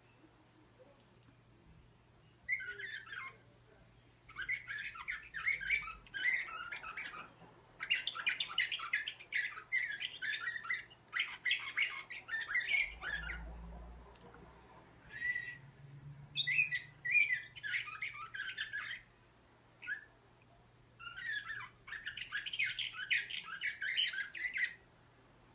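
Slavujar song canary singing in bursts of rapid trilled phrases, each lasting one to a few seconds, with short pauses between them.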